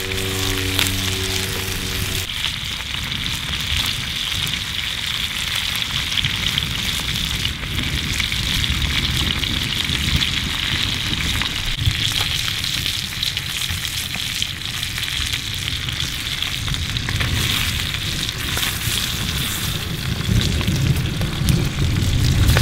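Fish guts frying in butter in a pan over a campfire: a steady crackling sizzle. A held musical chord fades out about two seconds in, and low pops from the fire grow louder near the end.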